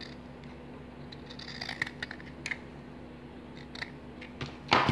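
Scissors cutting felt, a few short snips. A louder knock near the end.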